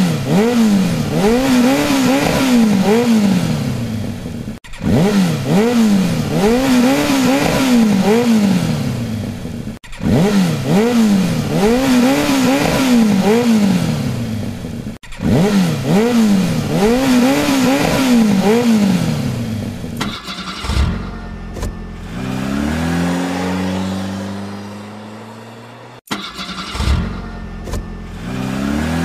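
A vehicle engine revving up and down over and over, the same few-second stretch repeating about every five seconds. After about twenty seconds it changes to an engine pulling away with a steadily rising pitch, which starts over near the end.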